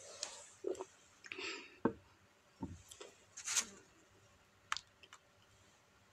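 Faint mouth sounds and small clicks of swallowing after a drink from a glass: several short, separate soft noises over the first five seconds, then quiet.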